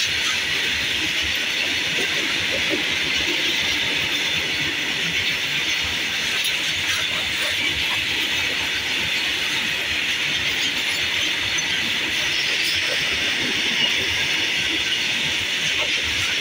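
Long goods train of covered box wagons rolling past at speed: a steady rush of wheels on rail, unbroken throughout.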